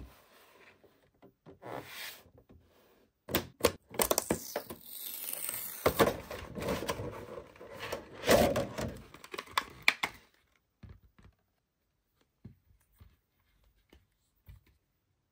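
Stiff clear plastic blister packaging crinkling and cracking as it is pried apart and pulled off a toy monster truck, with several sharp snaps, for about six seconds. A few faint clicks follow near the end.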